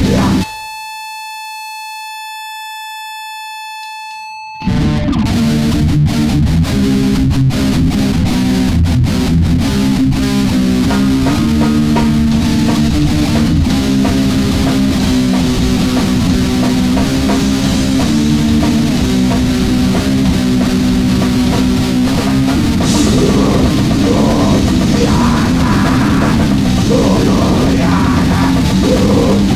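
A single steady pitched tone sounds alone for about four seconds. Then a loud grindcore/noise band crashes in with distorted guitar and drums and plays on.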